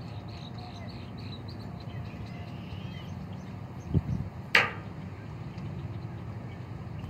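Steady low rumble of wind and lake water, with small birds chirping high and quick in the first half. About four seconds in there is a dull thump, followed half a second later by a single sharp click.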